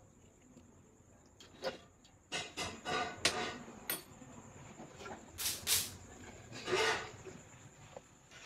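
A person chewing a large mouthful of fried rice, with irregular breathy mouth noises and rustles.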